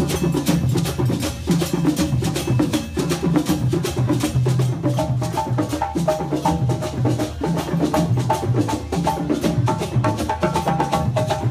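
Live ensemble of djembe hand drums playing a fast, steady, interlocking rhythm. A higher pitched repeating pattern of tones joins about five seconds in.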